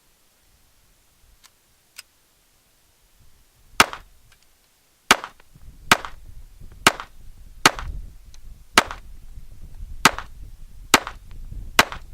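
A string of gunshots from a .357 Magnum snub-nose revolver, loud sharp cracks about one a second starting about four seconds in, with two faint shots before them.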